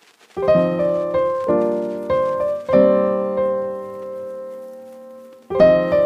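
Background music: piano chords struck and left to ring, with a long chord fading out through the middle before the phrase starts again near the end.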